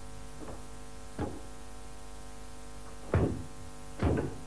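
A steady hum with a few short mechanical knocks from pneumatic trainer equipment, the two loudest about three and four seconds in.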